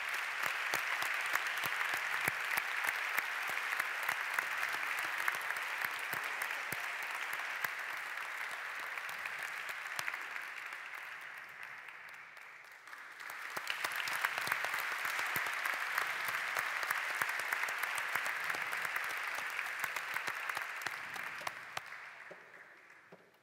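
Audience applauding. The clapping thins out a little past halfway, swells again, then fades away near the end.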